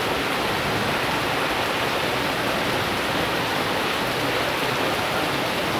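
Heavy rain pouring down steadily, an even hiss of water.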